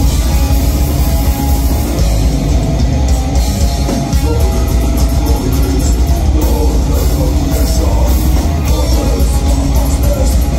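Metal band playing live: distorted electric guitars, bass and drums in a loud, dense, unbroken wall of sound with a heavy low end.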